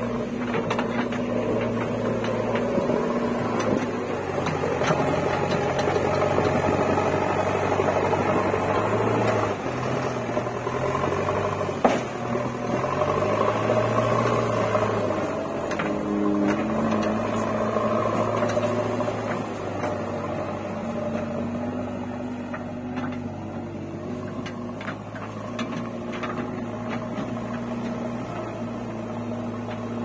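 JCB 3DX backhoe loader's diesel engine running under working load, its engine note rising and falling as the machine digs and moves, with scattered clanks and one sharp knock about twelve seconds in.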